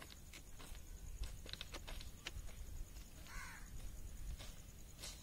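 Faint, irregular footsteps on railway track ballast, with a single bird call about three seconds in.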